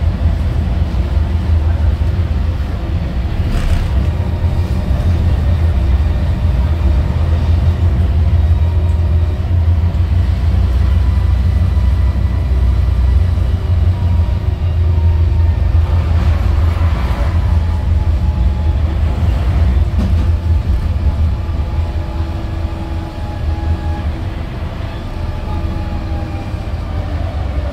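Gothenburg M31 tram running along the track, heard from inside the car: a steady, loud low rumble of wheels and running gear with a faint steady whine above it.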